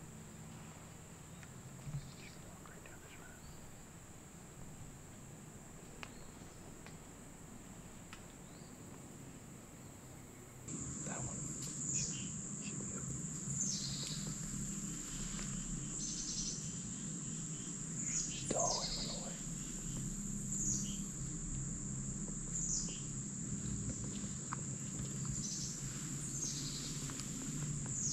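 Insects droning in a steady high buzz. About ten seconds in it gets louder, and a bird gives short, falling chirps every second or two.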